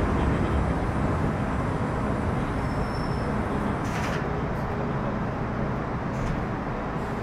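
MTR Metro Cammell M-Train (C250) electric train heard from inside the car, running and slowing into a station: a steady rumble of wheels and traction equipment with a faint hum, slowly getting quieter. A short hiss comes about four seconds in.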